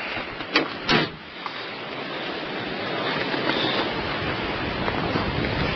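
A car door shut, with a sharp click and then a knock within the first second, followed by steady wind rushing over the microphone.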